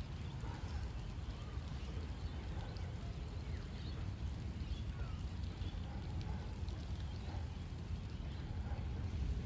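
Steady rain with a constant low rumble beneath it, and a few faint short chirps scattered through.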